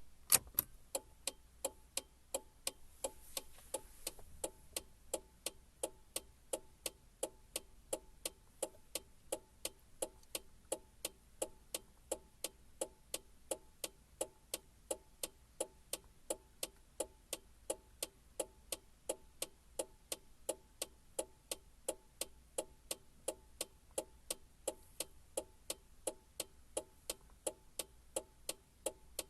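Car turn-signal indicator ticking: an even run of sharp clicks, about three a second.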